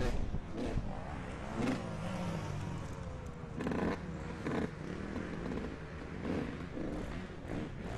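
Dirt bike engines, among them a Kawasaki KX65 two-stroke, revving up and down as they ride laps of the track. The pitch rises and falls with the throttle, with rough bursts of noise about two and four seconds in.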